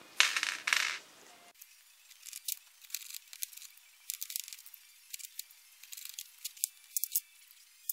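A small plastic parts bag crinkling for about the first second and a half, then scattered light clicks and ticks of a hex driver and small screws working into an RC crawler's plastic front axle housing as the truss is fitted.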